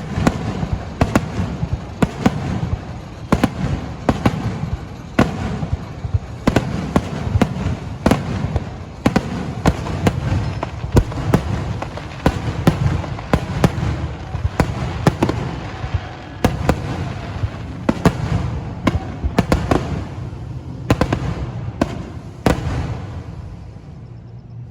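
Fireworks finale barrage: shells bursting in rapid succession, many sharp bangs over a rolling rumble, dying away near the end.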